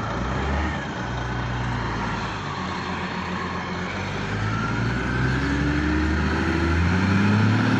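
Heavy diesel engine running, its pitch shifting a little early on and then climbing as it revs up in the second half, growing louder near the end.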